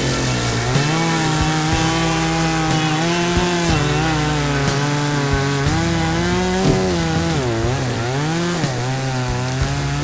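Chainsaw running and cutting into soft maple, its engine note holding steady, then dipping and picking back up several times as the chain loads in the wood.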